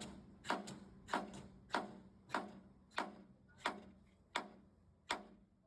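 Hammer blows on metal while riveting a truck frame: a steady series of sharp strikes, about three every two seconds and slowing a little, each ringing briefly, some struck twice in quick succession.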